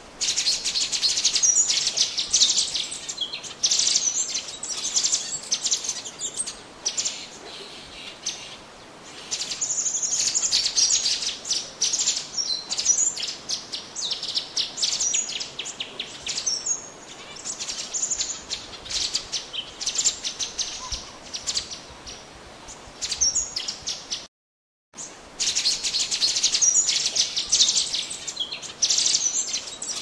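Orange-bellied leafbird (cucak cungok) singing a fast, high-pitched stream of chirps and trills, broken by a brief total silence about three-quarters of the way through.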